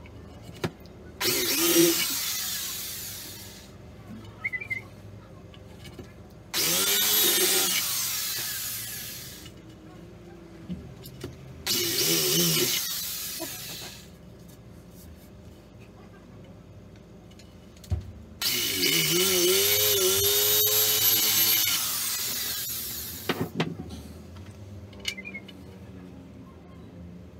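Corded electric drill boring into a wooden board in four runs of a few seconds each, the last one the longest. Each run starts and stops abruptly, with the motor pitch shifting as it spins up and slows. The holes are being widened and drilled deeper for screws.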